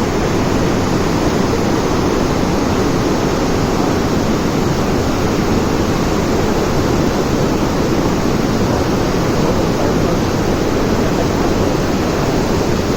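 Dam water rushing out in a loud, steady, unbroken flow.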